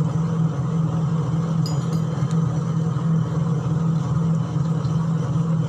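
Steady low mechanical hum over a constant noisy background, with a few faint high ticks about two seconds in.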